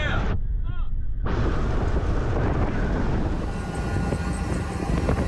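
Heavy wind buffeting on the microphone: a loud, continuous low rumble with a hiss above it.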